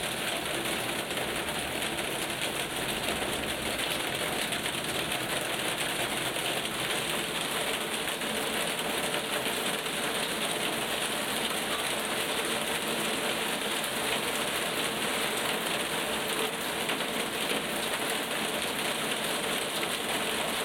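Steady thunderstorm rain pouring down, an even hiss of drops that holds level without a break.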